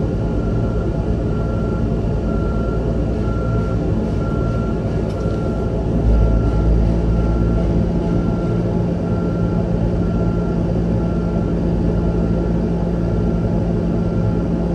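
Terex Quadstar truck's diesel engine running steadily, with a short beep repeating about twice a second that stops near the end. About six seconds in the engine grows louder and settles into a steadier, deeper note.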